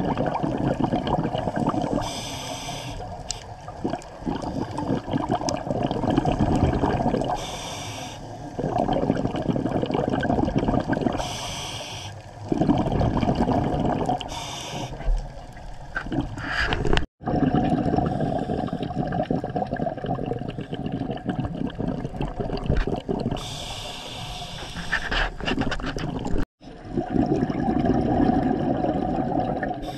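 Scuba diver breathing through a regulator underwater: a steady rush of breathing with bursts of exhaled bubbles every few seconds. The sound drops out briefly twice.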